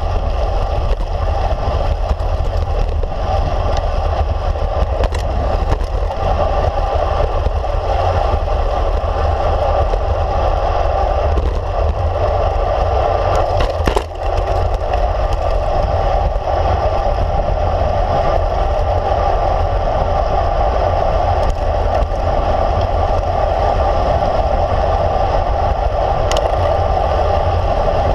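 Steady wind rush and tyre rolling noise from a road bike moving along a paved road, with wind buffeting a handlebar-mounted camera's microphone. A brief click and dip about halfway through.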